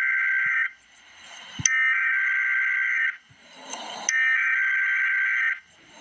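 Emergency Alert System SAME header: screechy digital data tones in three bursts about a second and a half long, with faint hiss in the gaps between. The first burst ends just under a second in. This is the coded header that opens an alert, here a flood advisory.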